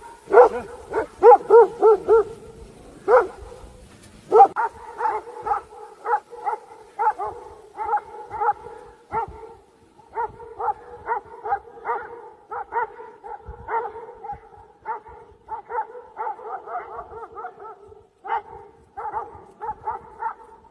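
Dogs barking rapidly and over and over at a brown bear they are chasing. A loud volley in the first two seconds, a short pause, then steady barking at about two or three barks a second.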